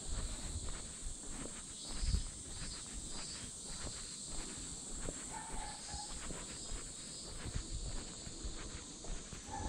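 Footsteps of a walker at a steady pace, about two a second, under a steady high drone of cicadas.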